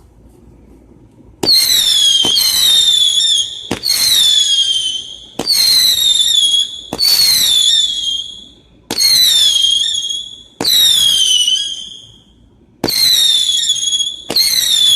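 Mega Banger Halley's Comet firework firing a string of about nine whistling shots after a quiet first second and a half. Each shot is a sharp pop followed by a loud, shrill whistle that slides slightly down in pitch and fades over about a second.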